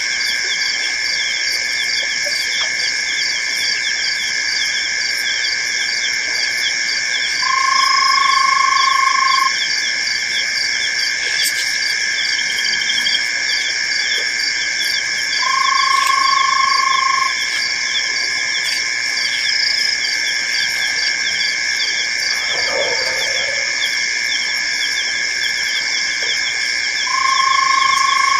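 Night chorus of frogs and insects at a waterhole: a steady high trilling with a fast ticking running through it. A lower, even call lasting about two seconds comes three times, roughly eight to eleven seconds apart.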